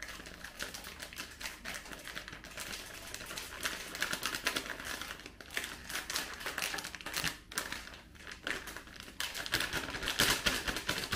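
Plastic bag of dry biscuit mix crinkling as it is squeezed and shaken out over a mixing bowl, with a few short pauses, loudest near the end.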